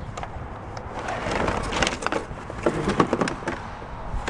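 Rummaging in a cardboard box of video game controllers and tangled cords: plastic and cables rattling and scraping against the cardboard as an Xbox 360 console is lifted out.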